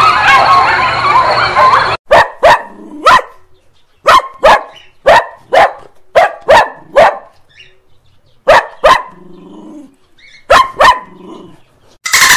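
A dog barking in short runs of two to five barks with pauses between. Before the barking begins there is a dense chatter of many overlapping high calls, and a loud, fast rattle starts near the end.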